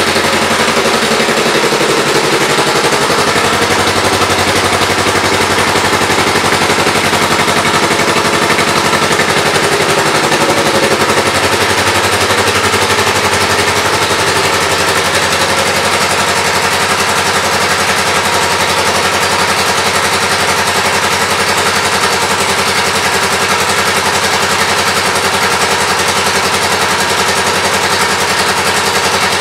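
2007 Kawasaki Vulcan 500 LTD's parallel-twin engine idling through an aftermarket exhaust, a loud, steady run of rapid exhaust pulses.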